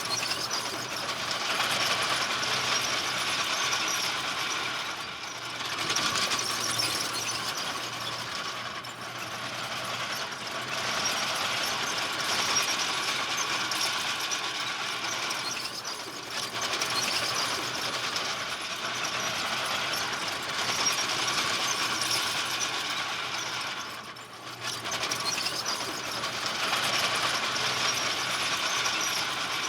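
Crawler bulldozer at work, its steel tracks squealing and clattering, with short dips in level every few seconds.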